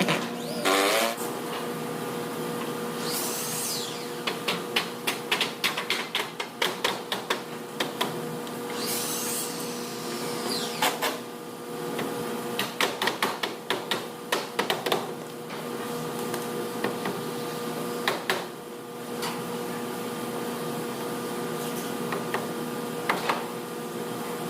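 Power-tool work on timber: a tool's motor whirs up and back down twice, and runs of quick clicking knocks come in clusters, over a steady mechanical hum.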